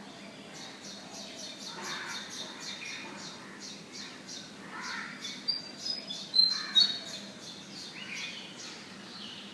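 Several wild birds chirping in the morning: a steady run of short high chirps, about three a second, with lower calls among them. A few louder, sharper chirps stand out about two-thirds of the way through.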